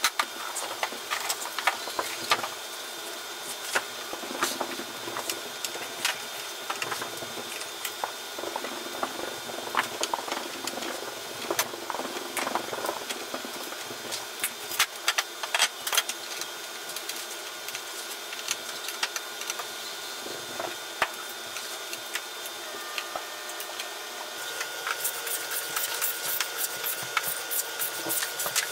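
Workshop handling sounds: scattered clicks, taps and knocks of wood and small hinge hardware as a pine cabinet door is fitted and its hinge screws are turned by hand, with a quicker run of clicks near the end.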